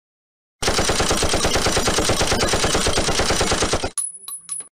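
Machine-gun burst sound effect: about three seconds of rapid, evenly spaced shots, which stop abruptly and are followed by a few separate sharp clicks.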